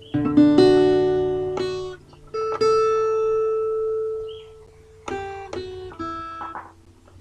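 Guitar chords plucked and left to ring out, a few at a time with short pauses between, before any singing begins.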